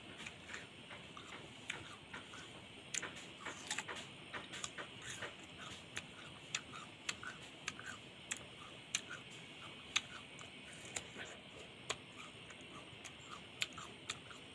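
Chewing and biting into a crisp pear: an irregular run of small crunchy clicks, a few a second.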